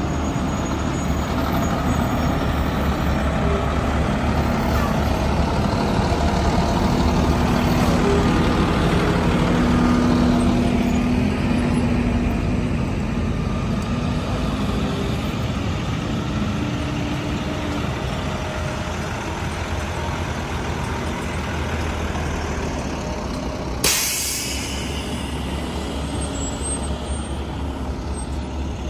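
Diesel engines of fire trucks idling, a steady drone. About 24 seconds in, a sudden loud hiss of air cuts in and fades.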